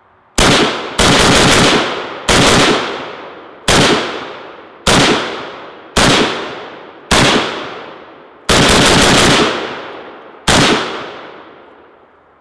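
AK-pattern rifle in 7.62x39 firing about fifteen rounds: single shots roughly a second apart broken by two quick strings, each report loud and trailing off in a long echo. The rifle cycles without a stoppage.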